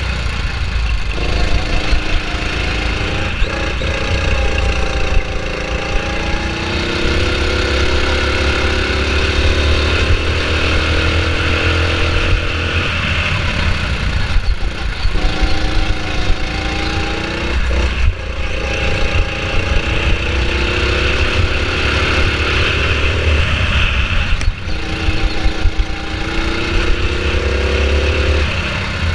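Go-kart engine running at speed, its pitch climbing steadily for several seconds as it accelerates and dropping off sharply as the throttle eases, about five times over.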